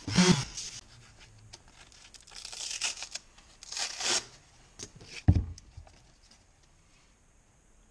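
A hook-and-loop sanding disc is peeled off a random orbital sander's pad in two short rasping tears, about two and a half and four seconds in, just after the sander's motor stops. A single knock follows a little after five seconds.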